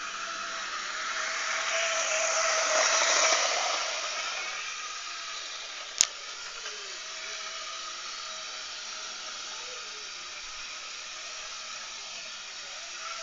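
Hornby model train's electric motor and wheels whirring steadily along the track, swelling louder about two to three seconds in as the locomotive passes close, then easing off. One sharp click about halfway through.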